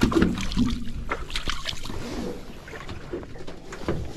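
Irregular knocks and rustles of handling aboard a small aluminium fishing boat, gear and landing net shifting on the checker-plate deck, over a low steady rumble.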